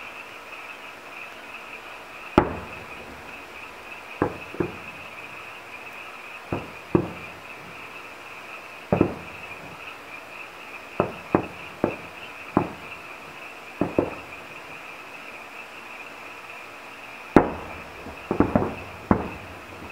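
Distant aerial firework shells bursting in irregular booms, each trailing off briefly, with a quick cluster of several bursts near the end. A steady, high-pitched chorus of night insects runs underneath.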